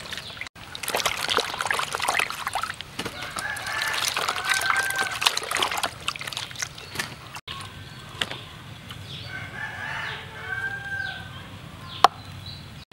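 Hands washing cut jackfruit pieces in a plastic basin of water, splashing and sloshing for the first several seconds. A rooster crows twice in the background, a few seconds in and again about ten seconds in. A single sharp knock near the end.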